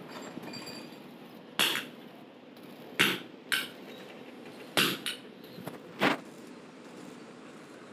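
Hammer blows on steel: five loud, sharp metallic strikes at uneven intervals of about a second, each ringing briefly, with a weaker knock just after the fourth.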